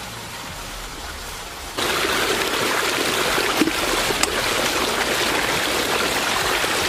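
River water running, turning suddenly louder a couple of seconds in.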